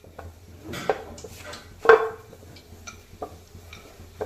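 Wooden rolling pin rolling out puri dough on a round metal plate: a few scattered knocks and scrapes of the pin on the plate, the loudest about two seconds in.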